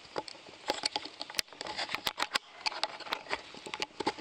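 Handling noise as a camera is lifted off its mount and carried: a quick, irregular run of small clicks and knocks, several a second.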